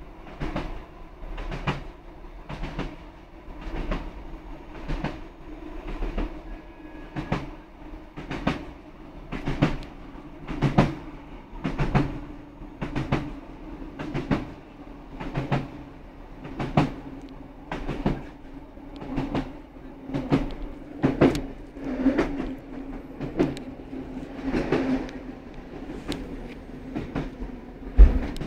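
Inside a Class 156 Sprinter diesel multiple unit under way: the wheels give a regular clickety-clack over the rail joints, often in pairs, about once a second, over the steady drone of the underfloor diesel engine. A heavier thump comes near the end.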